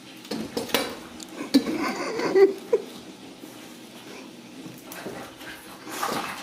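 Ragdoll kittens playing with a ball-and-feather toy: clattering knocks as the toy is batted and the kittens' paws and claws scrabble on the wooden floor and door, with a few short squeaks. The busiest clatter comes in the first three seconds, with another rise near the end.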